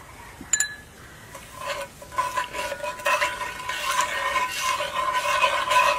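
Sugar being stirred into liquid in a pot: a utensil swishes and scrapes against the pot with a faint ringing, starting about two seconds in.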